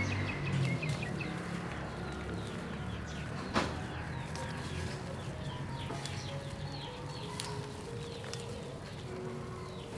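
Birds chirping in short repeated calls, with a single sharp click about three and a half seconds in.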